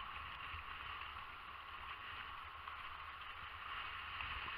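Steady wash of small waves breaking on a sandy shore, with a low wind rumble on the microphone.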